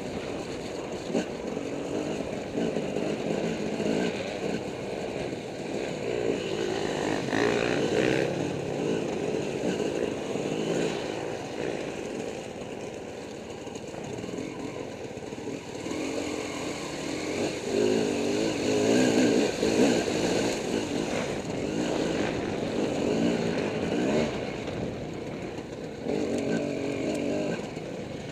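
Dirt bike engine heard from the rider's seat, revving up and dropping back again and again as the bike is ridden over rough, muddy trail.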